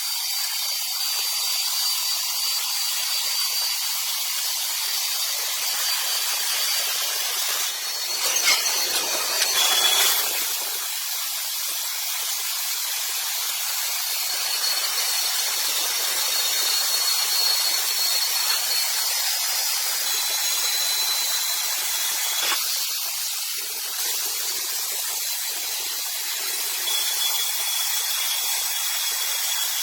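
Wood-processing machinery running with a steady high-pitched hiss and thin squealing tones, with a louder burst about eight seconds in.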